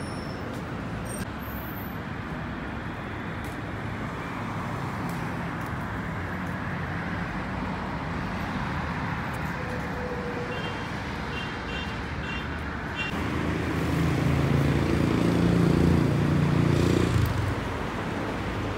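Road traffic, a steady hum of passing cars. Near the end a motor vehicle passes close and its engine comes up louder for a few seconds before fading.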